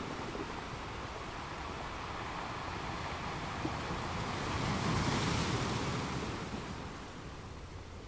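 Ocean waves washing, a steady rush of water that swells to its loudest about five seconds in and then eases off.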